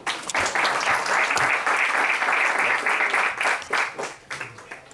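Audience applauding: dense clapping that starts right away, then thins out and dies away about four seconds in.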